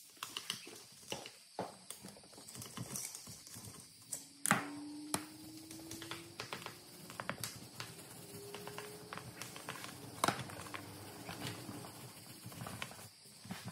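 Scattered metallic clicks and knocks of hand tools working on a dismantled Honda XL175 engine on a steel workbench, with a sharper knock about four and a half seconds in and another near ten seconds.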